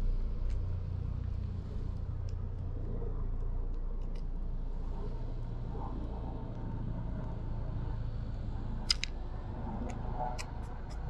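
Steady low rumble of road traffic, with sparse sharp ticks of sparrows' beaks pecking at seed in a wooden tray, a quick run of ticks starting near the end.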